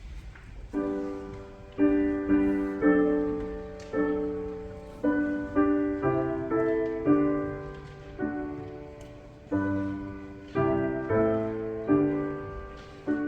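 Piano playing slow, sustained chords, each struck firmly and left to fade before the next, in a steady hymn-like pace.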